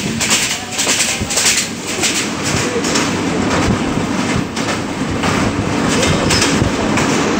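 Bangladesh Railway passenger train running along the line, heard from a carriage window: a steady rumble and rush of air with uneven clacking of wheels over the rails.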